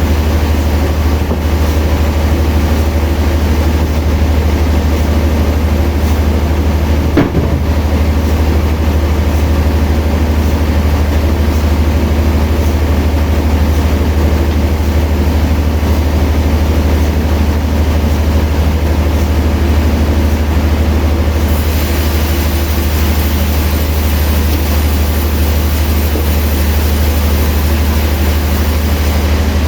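Sawmill machinery running steadily with a deep, constant hum. There is one sharp knock about seven seconds in, and a brighter hiss joins about two-thirds of the way through.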